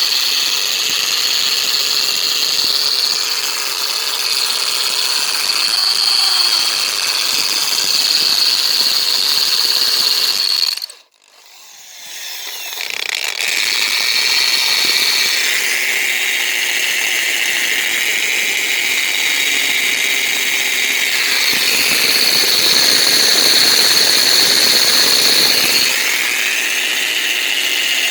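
Electric drill with a concrete (masonry) bit running at speed with a steady high whine. About eleven seconds in the motor is released and winds down almost to silence, then starts again, speeds up and runs on with small changes in pitch.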